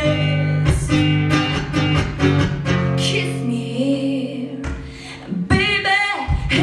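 Live song: a woman singing with strummed guitar accompaniment over a steady bass line, with a quieter dip about five seconds in before the next strummed phrase.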